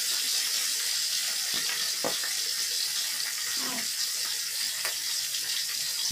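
Whole fish frying in hot cooking oil in a wok, a steady high sizzle, with a few faint clicks and knocks.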